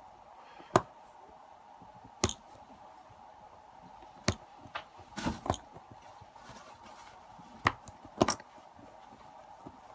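Sharp metallic clicks and taps, about seven at irregular intervals, of small tools prying at the retaining clip on a lock being taken apart.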